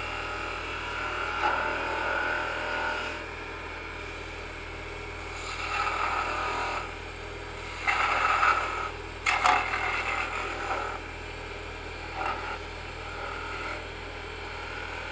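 Oneway wood lathe running with a steady hum while a spindle gouge cuts green wood in several short passes, each pass a scraping, shaving sound as a bead is shaped. One sharp click about nine seconds in.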